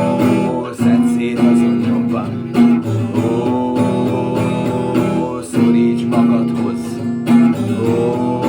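Instrumental passage of a song: guitar strumming chords that change every second or two, with no vocals.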